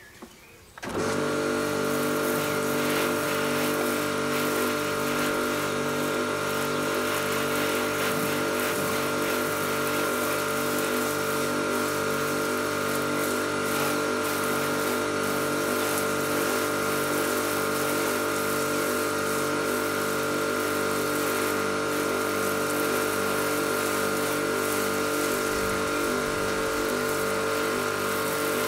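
Ruris Pro Power Jet 1900 pressure washer, with its 2500 W induction motor, starting about a second in and then running steadily under load, a hum with a faint regular pulsing, with the hiss of water spraying from the multijet lance on its foam setting.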